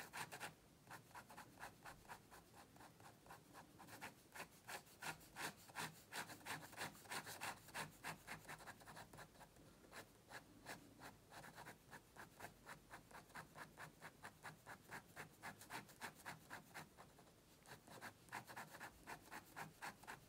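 Fine-tip ink pen scratching quick hatching strokes across textured paper to build up a shadow, faint and rhythmic at about four strokes a second, easing off briefly near the end.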